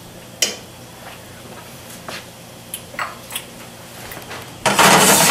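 A few light clicks and taps of kitchen utensils around a pan, then a loud rustling noise starts near the end.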